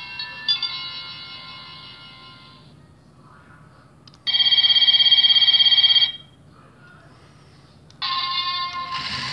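Electronic sound effects from a Plarail toy Shinkansen sound unit. A chime melody fades out, then comes about two seconds of a loud, steady electronic ring, like a station departure bell. About eight seconds in, another chime starts.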